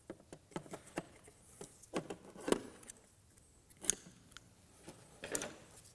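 Double-sided sticky tape being pulled off its roll and handled, giving scattered short crackles and clicks, the sharpest about two and a half and four seconds in.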